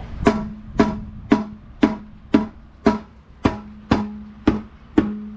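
About ten evenly spaced hammer blows, roughly two a second, on the Slant Six manifold to knock it loose from the head. Each blow is sharp and leaves a short ringing tone.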